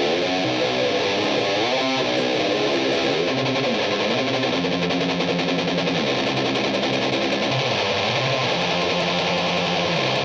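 Electric guitar played through a Death By Audio Fuzz War fuzz pedal into a Peavey 6505MH amp: a heavily distorted fuzz riff of low, sustained notes that change pitch every second or two at a steady level.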